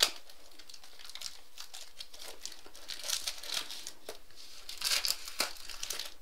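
Clear plastic shrink wrap being peeled and torn off a trading card box, crinkling in irregular bursts with a few sharp crackles, busiest around the middle and about five seconds in.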